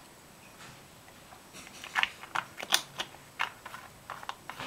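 Small makeup containers and tools clicking and clacking together as they are picked up and put down, a quick irregular run of sharp clicks starting about a second and a half in.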